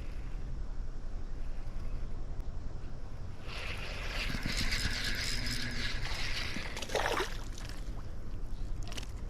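Steady low rumble of flowing river water and wind on the microphone, with a louder hissing rush for about three seconds in the middle that falls away in pitch as it ends, and a sharp click near the end.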